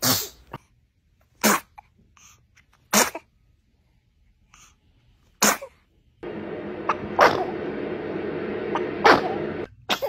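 Babies sneezing: a toddler and then a newborn give about six short, sharp sneezes spaced a second or two apart, the later ones over a steady background hiss.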